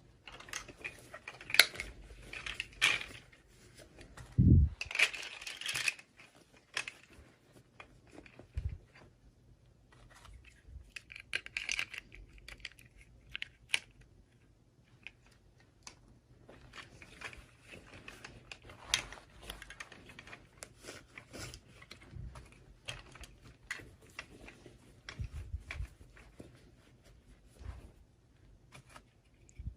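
Hands unboxing toy packaging: scattered clicks, rustles and tearing of plastic and card, with a soft thump about four and a half seconds in.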